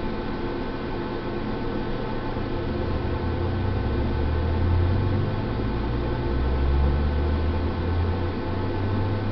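Steady hiss and electrical hum with a fan-like drone, no distinct events; a low rumble swells up from about three and a half seconds in and eases off near the end.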